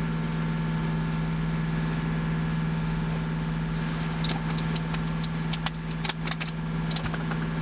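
A sailboat's inboard diesel engine running steadily under way, a constant low drone, with a scatter of sharp clicks and knocks between about four and seven seconds in.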